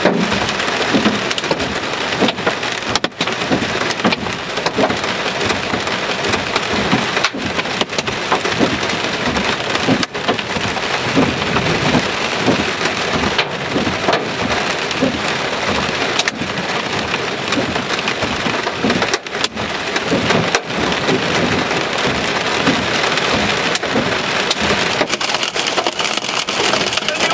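Hail mixed with heavy rain hitting a car's roof and windshield in a dense, steady patter of small impacts, heard from inside the car.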